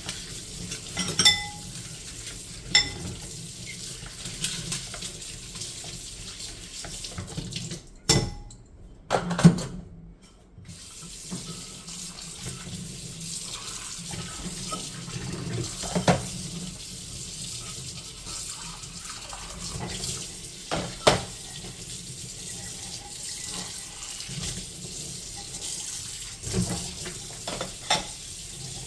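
Kitchen tap running into a sink while dishes are washed, with occasional sharp clinks of plates and cutlery knocking together. The water cuts out briefly about eight seconds in, then runs again.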